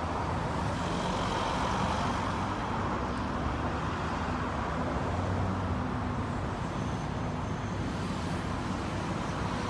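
Steady street traffic noise, a continuous low rumble of vehicles with no sudden events.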